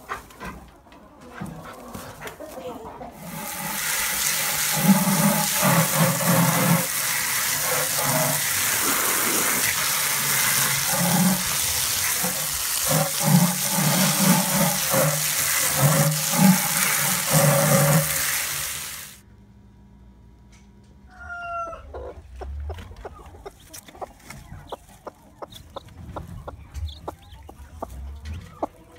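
A loud, steady rush of water starts about three seconds in, with low thuds inside it, and cuts off suddenly about sixteen seconds later. After that come quieter scattered knocks and a short chicken call.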